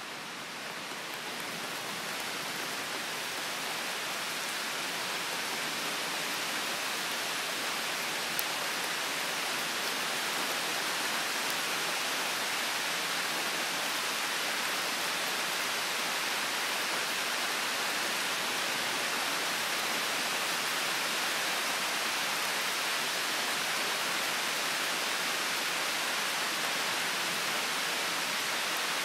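Rain falling steadily in a summer storm, an even hiss that grows louder over the first few seconds and then holds level. A single faint tick about eight seconds in.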